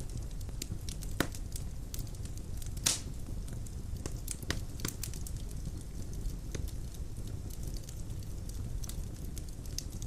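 Wood fire burning in a fireplace: logs crackling with irregular pops, one sharper pop about three seconds in, over a steady low rumble of flames.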